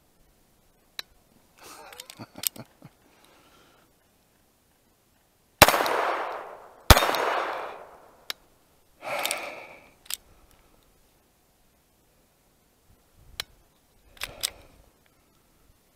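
Two sharp .22 LR pistol shots about a second and a half apart from a Glock 19 fitted with an Advantage Arms conversion kit, then a third, quieter report a couple of seconds later. Scattered small clicks of the pistol being handled fill the long gaps between shots, as the kit keeps failing to run reliably.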